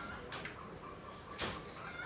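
Faint repeated bird calls in the background, with one sharp knock about one and a half seconds in.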